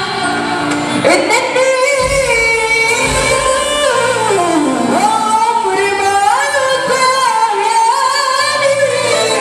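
A man singing a long, ornamented Arabic vocal line into a microphone over amplified music. He holds notes that slide up and down, with a long falling glide about halfway through.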